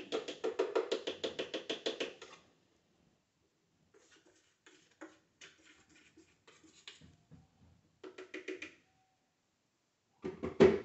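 A spoon tapping and scraping inside a blender jar as ground spice powder is knocked out into a glass dish. It starts with a fast, even run of taps for about two seconds, followed by scattered knocks and a louder knock near the end.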